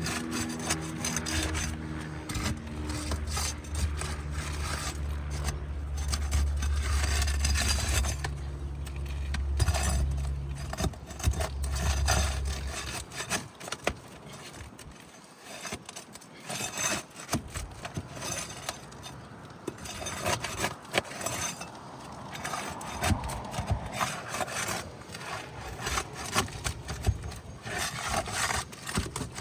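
Nails being pried loose and a 3-tab asphalt shingle worked out of a roof: irregular scraping, rasping and knocking of a tool against the shingles. A steady low hum runs under it and stops about twelve seconds in.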